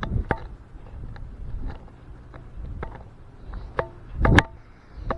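Irregular clicks and knocks of handling noise from a hand gripping and moving a fake sword close to the microphone. A few knocks carry a short ringing tone, and the loudest comes about four seconds in.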